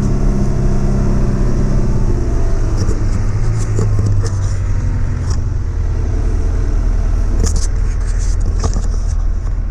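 Diesel engine of heavy earthmoving equipment running steadily, with scattered metallic clanks and rattles about three seconds in and again near the end.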